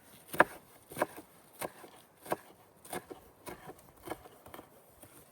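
A knife chopping on a wooden cutting board, with a steady run of about eight even strokes a little over half a second apart.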